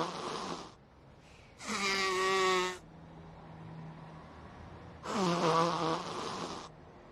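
Three drawn-out wordless vocal sounds from animated characters' voices: a lower voice falling in pitch, then a higher voice, then the lower voice again, each lasting a second or more.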